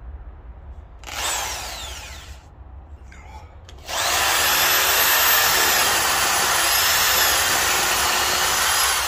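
Power drill with a spade bit boring into wood. There is a short run about a second in that winds down, then a steady high whine from about four seconds on as the bit cuts the entrance hole.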